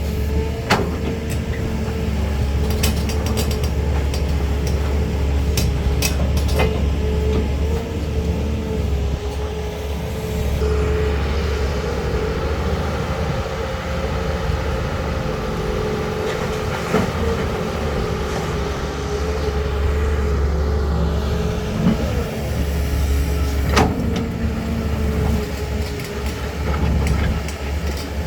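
Caterpillar 320 hydraulic excavator's diesel engine running steadily under load, with a constant low rumble and a steady hum. Sharp metallic knocks and clanks come at intervals, several in the first seven seconds and one more near the end.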